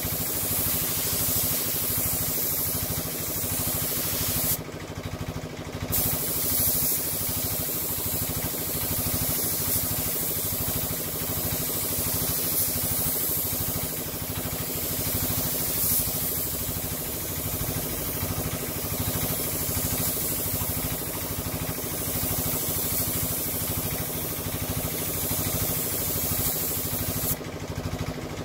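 Compressed-air paint spray gun hissing as a dust coat of paint goes onto a van panel, over the steady running of the air compressor that feeds it. The hiss stops briefly twice, about five seconds in and near the end, when the trigger is let off, while the compressor keeps running.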